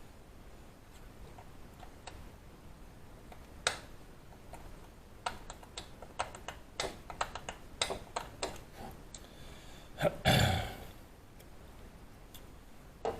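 Hand tools being handled during work on a broken bolt: a run of sharp clicks and knocks for several seconds, then a louder clattering thud about ten seconds in.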